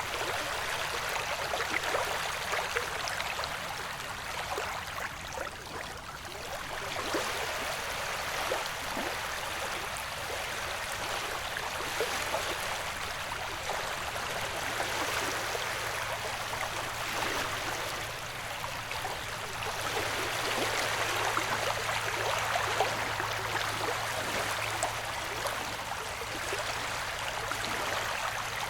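Ocean waves washing in a steady rush of water noise that swells and falls back every several seconds.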